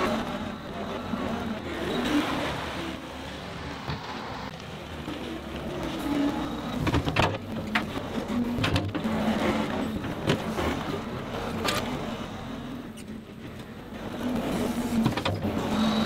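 John Deere 325G compact track loader's diesel engine working as it pushes a load of topsoil along a dirt bank, with sharp knocks and clatter from its tracks and rocks a few times in the middle. It gets louder near the end as the loader comes past close by.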